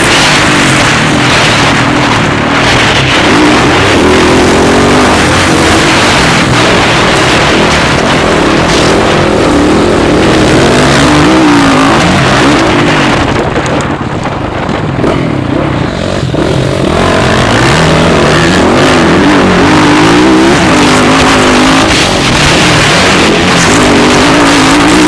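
Motocross bike engines revving hard, the pitch rising and falling again and again with throttle and gear changes. About halfway through the sound eases briefly, then picks back up.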